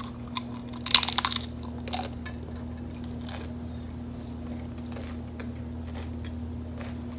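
Bite into a crunchy hard taco shell: a loud crackling crunch about a second in, then quieter chewing with scattered small clicks. A steady low hum runs underneath.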